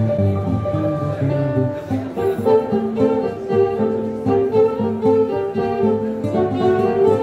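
Live tango music played on a nylon-string classical guitar and a violin. The guitar plucks a run of notes, and a long note is held over it for about the first two seconds.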